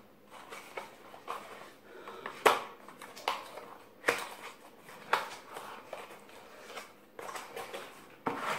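Narrow cardboard product box being handled and prised open by hand: irregular sharp taps and scuffs of card, the loudest about two and a half seconds in.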